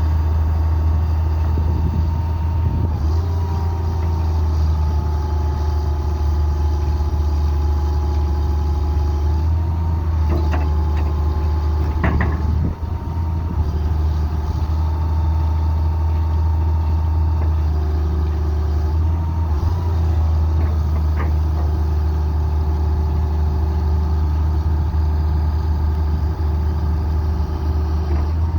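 Hitachi Zaxis 200LC excavator's diesel engine running steadily, with a whine that shifts pitch several times and a brief clunk about twelve seconds in.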